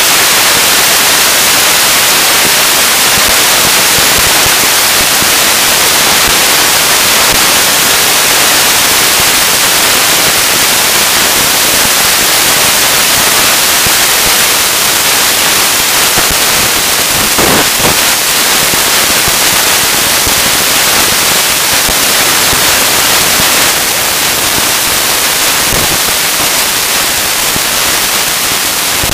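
Mountain bike riding fast down a leaf-covered forest trail: a loud, steady rushing hiss of wind on the microphone mixed with tyre and trail noise, with a brief clatter from a bump a little after halfway.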